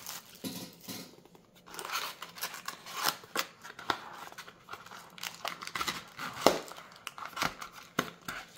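Scissors snipping open the wrapping of a booster box in a run of short, irregular cuts, with the plastic wrap crinkling between snips.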